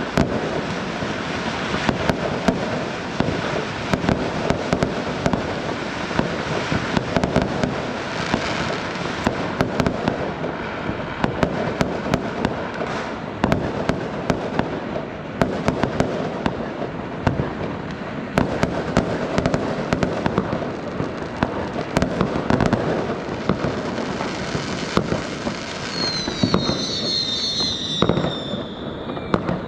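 Fireworks going off without pause: a dense crackle of many bangs and pops over a steady din. Near the end come several high whistles, each falling in pitch.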